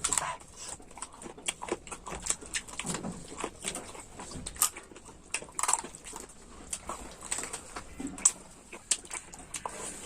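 Close-miked chewing and mouth sounds of a person eating chicken: irregular wet smacks and clicks.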